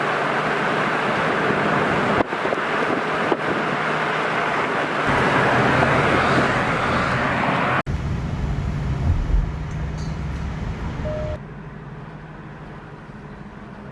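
Steady vehicle and road noise with some wind on the microphone, broken by several abrupt cuts. About eleven seconds in it drops to a quieter, duller hum.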